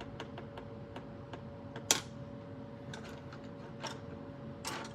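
Scattered light clicks and taps, with one sharper tap about two seconds in, over a steady faint hum.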